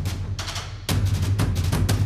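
Instrumental music with a driving beat of rapid drum hits over a steady deep bass; it thins out briefly just before a second in, then the full beat comes back in.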